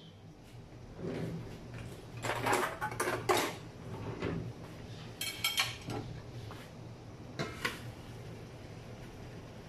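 Metal cookware clattering: a stainless-steel wok and its dome lid knocking and clinking, with a short ringing clink about halfway through, over a low steady hum.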